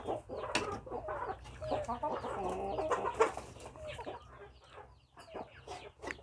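Chickens clucking, many short calls overlapping, thinning out after about four seconds.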